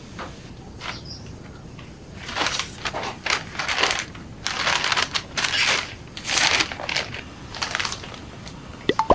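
Brown paper shopping bag rustling and crinkling in irregular bursts as it is carried and handed over, starting about two seconds in.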